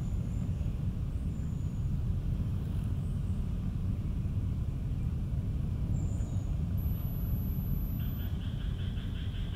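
Steady low outdoor rumble with a few faint high chirps; a thin high tone sounds briefly about seven seconds in, and a pulsing buzz starts near the end.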